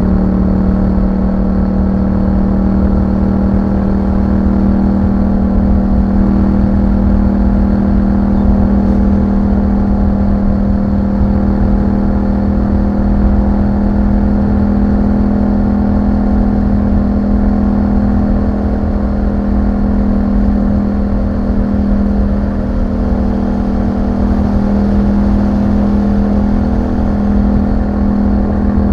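2021 Yamaha MT-07's parallel-twin engine through an Akrapovic exhaust, cruising at a steady engine speed. The pitch holds almost constant, with only slight wavering in the second half.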